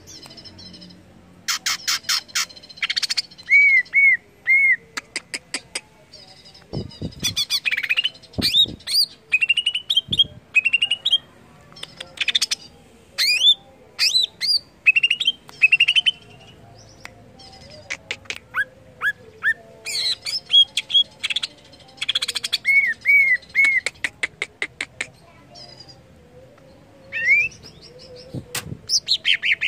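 Male green leafbird (cucak ijo) singing a loud, varied song in short phrases with pauses between them. The phrases mix fast rattling trills, clear rising whistles and runs of three repeated arched notes, with a quieter lull near the end.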